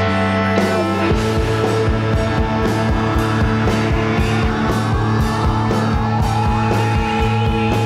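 Indie rock music: an instrumental passage of sustained guitar over a steady drum beat, which fills in about a second in.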